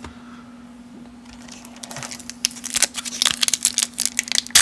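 Wax card-pack wrapper crinkling and crackling as it is worked open by hand, a rapid run of sharp crackles that starts about two seconds in and grows busier.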